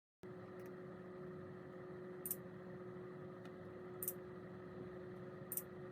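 Faint steady hum with one constant tone, and a soft high tick about every second and a half.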